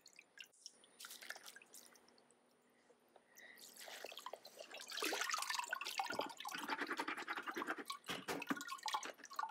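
Water dripping from a mesh sifting pan lifted out of a tub, then from about four seconds in a dense, crackling rattle of wet lamproite gravel scraping over wire mesh as it is emptied from the sieve onto the saruca screen in the water.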